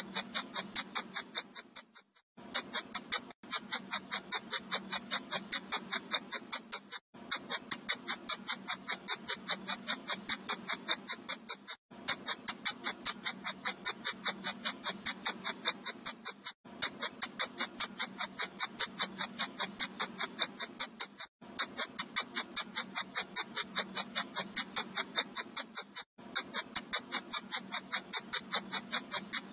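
Electronic mosquito-repellent sound: a rapid train of high-pitched beeping pulses, about four or five a second, played as a loop that breaks off briefly about every five seconds and starts again.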